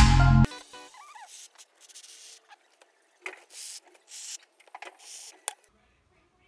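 Electronic background music cutting off abruptly about half a second in, followed by faint scattered rustles and a few light clicks.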